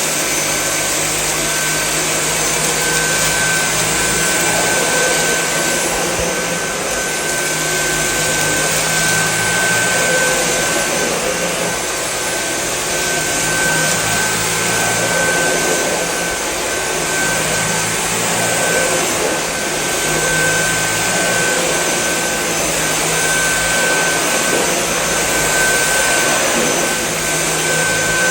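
Dyson V8 Extra cordless handheld vacuum running steadily on max power while it sucks up spread dirt: a steady high whine over a rushing of air.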